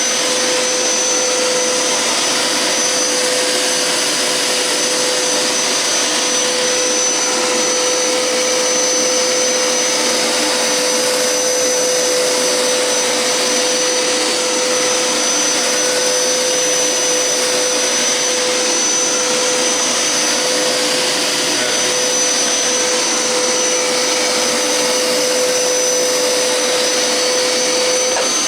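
Hoover Powerscrub Deluxe carpet cleaner running in rinse mode, its motor and suction making a loud, steady rushing noise with a constant high whine.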